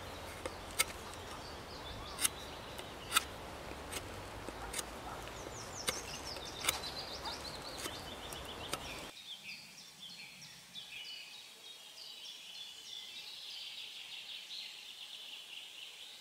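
Bushcraft knife carving the end of a green stick: irregular sharp clicks of the blade biting into the wood, about one a second. Partway through, the background drops away and birds sing high, quick trills.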